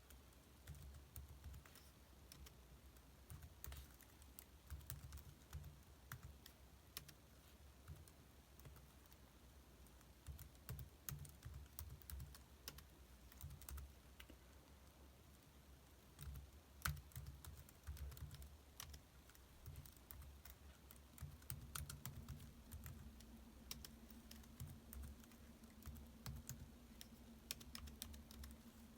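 Laptop keyboard being typed on: faint, irregular keystrokes in quick runs and pauses, with one sharper tap about 17 seconds in. A faint steady hum comes in about 21 seconds in.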